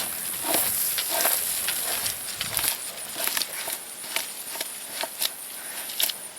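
Fleshing tool scraping meat and fat off a raw deer hide in short, irregular strokes, about one or two a second.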